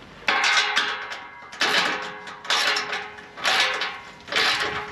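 Socket ratchet wrench tightening the nut on a steel exhaust U-bolt clamp: a burst of ratchet clicking with each swing, about once a second, each followed by a metallic ring.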